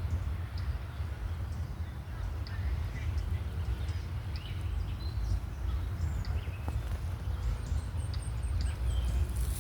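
Steady low rumble of wind on the microphone, with faint, short bird chirps scattered through. A brief rustle comes near the end.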